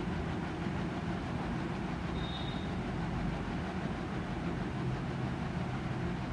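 Milk boiling hard and frothing in a nonstick pan on a gas burner as it is stirred with a spatula: a steady rushing noise with a low rumble underneath.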